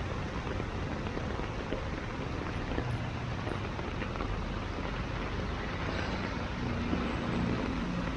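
Heavy rain falling over busy road traffic, a steady hiss with the rumble of vehicles. Near the end the low hum of a passing vehicle's engine rises over it.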